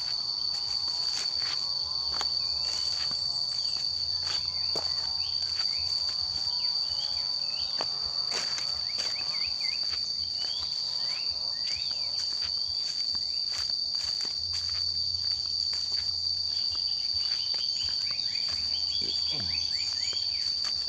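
A steady, high-pitched drone of insects in tropical forest, with footsteps and rustling on a leaf-strewn path and a few short chirps.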